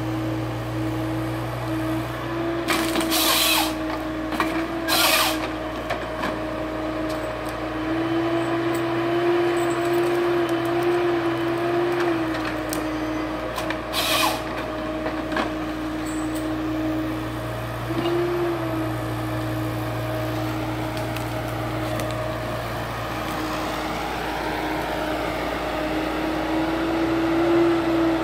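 Neuson 9002HV forestry harvester's diesel engine and hydraulics running steadily with a constant hum that rises a little in pitch under load a few times. Three short hissing bursts stand out, at about three, five and fourteen seconds in.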